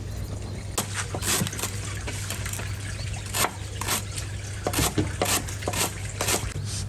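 Water splashing and trickling in irregular short bursts, over a steady low hum.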